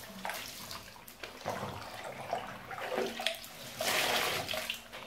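Water sloshing and splashing in a filled bathtub as a person moves in it, in irregular swells, the loudest about four seconds in.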